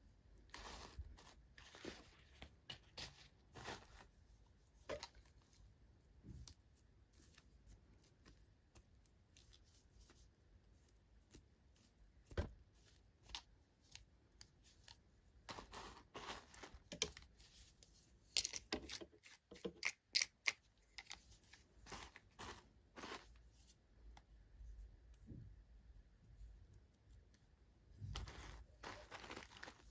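Toy packaging being handled and opened: quiet, scattered rustles and tearing with small clicks and taps, busiest and loudest a little past the middle.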